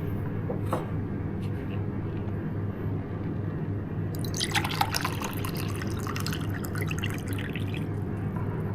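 Water being poured into a cup, a spattering run of liquid from about four seconds in for roughly four seconds, over a steady low hum.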